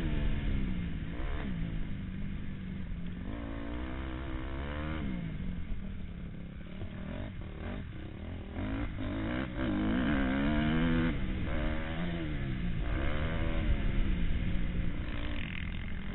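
Motocross bike engine heard from the rider's helmet, its pitch repeatedly climbing under throttle and dropping off as the rider shifts and backs off for a corner.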